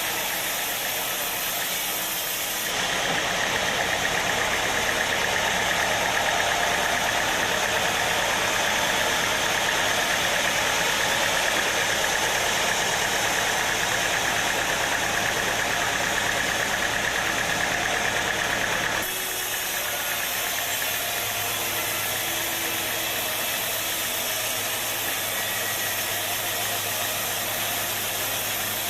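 Sawmill machinery running steadily. About three seconds in it turns louder and harsher for some sixteen seconds, then settles back to a steadier hum.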